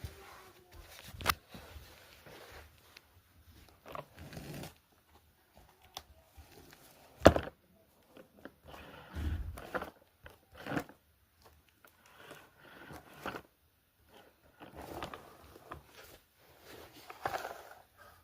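Irregular handling noises: rustling and crinkling of material being worked, with a few sharp clicks or knocks, the loudest about a second in and about seven seconds in.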